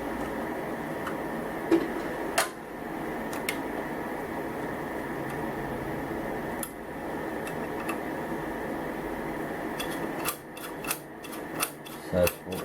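Small metal tools clicking and ticking against the embroidery machine head while set screws are worked into the upper slider hook bracket: a few separate clicks in the first half, then a quick run of clicks near the end, over a steady hum.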